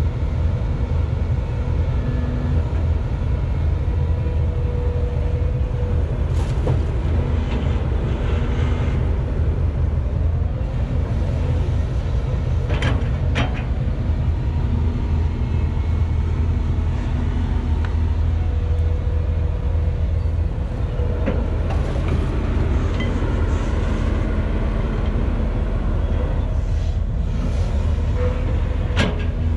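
Volvo EC210BLC excavator's diesel engine running under load as it digs, a steady heavy rumble with a whine that comes and goes. A few sharp metallic clanks come from the bucket and boom, two about a third of the way in and one near the end.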